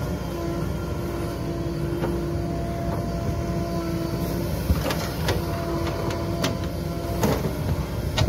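JCB 3DX backhoe loader's diesel engine running under load as it digs and lifts a bucket of soil, with a steady whine from the machine. Several sharp knocks come in the second half as the loaded bucket is raised and swung.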